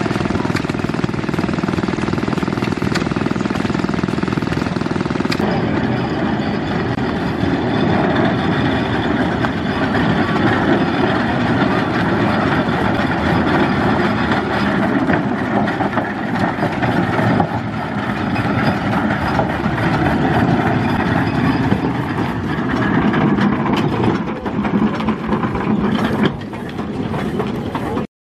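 Steam road roller and other vintage engines running steadily as the roller drives by. The sound cuts off suddenly near the end.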